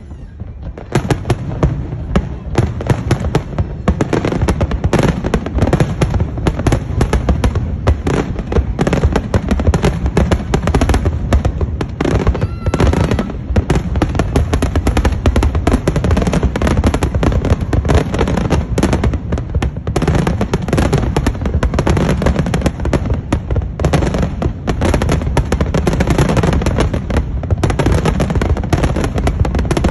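Large aerial fireworks display: a dense, continuous barrage of shell bursts and crackle that starts about a second in and keeps up without a break.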